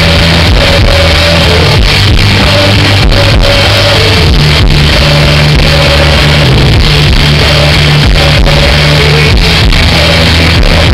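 German rock band playing a song live, with singing over electric guitars, bass and drums. It is recorded loud and flat from within the audience.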